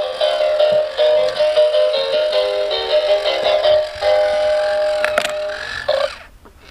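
Background music: a bright melody of short stepping notes that cuts off about six seconds in.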